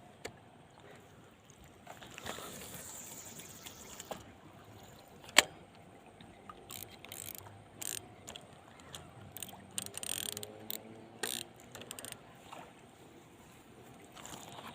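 Fishing tackle being handled, with irregular mechanical clicks and knocks of the reel and one sharp click about five seconds in.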